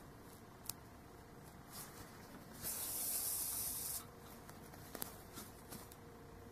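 A brief rasping hiss of thread and crocheted yarn rubbing as the eye is sewn on by hand, about a second and a half long, starting about two and a half seconds in. A few faint ticks come before and after it.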